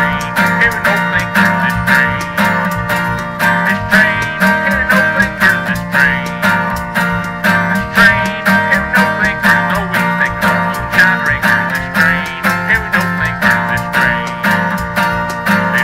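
Acoustic guitar strummed in a steady, even rhythm on a bluegrass-gospel tune, with a wavering lead melody over the top and no singing.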